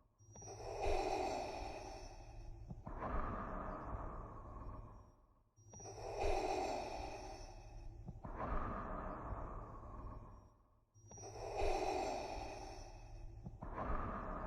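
Darth Vader's respirator breathing sound effect: slow, mechanical masked breaths, each in two parts with the first part louder. The breath repeats about every five and a half seconds with a short gap between breaths, nearly three times.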